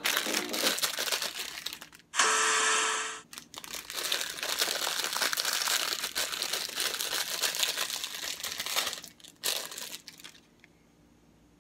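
Clear plastic packaging bag crinkling as it is handled and worked open. There is a short louder burst about two seconds in, and the crinkling stops near the end.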